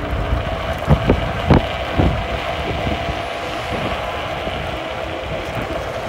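Wind rushing over the microphone with a steady road rumble while riding a 2500-watt electric scooter on rough asphalt, with a few sharp knocks over the first two seconds.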